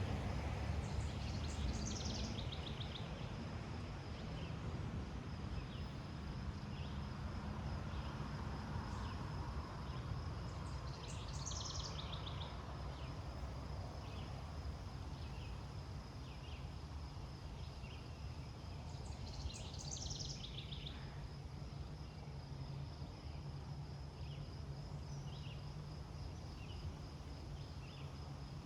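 Outdoor ambience: a steady hiss of cottonwood leaves rustling over a low rumble, with an insect trilling steadily at a high pitch. A bird sings a short, descending trilled phrase three times, and short chirps come about once a second.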